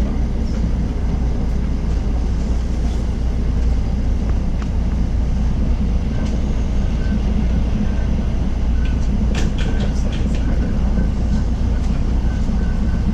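Electric commuter train running at speed, heard from inside the passenger car: a steady, loud low rumble of wheels on rail, with a short run of sharp clicks about nine to ten seconds in.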